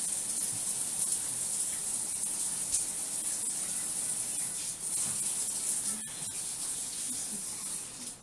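A steady high-pitched hiss, like running water or a spray, that cuts off near the end.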